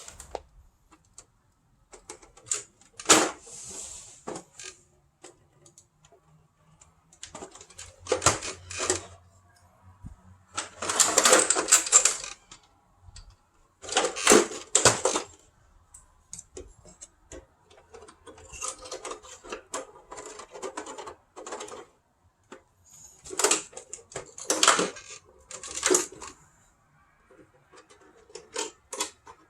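Irregular bursts of clicking and clattering from the hard plastic casing and parts of a tower fan being handled and taken apart, with short quiet gaps between them.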